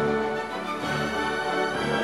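Background instrumental music with held notes that change every half second or so.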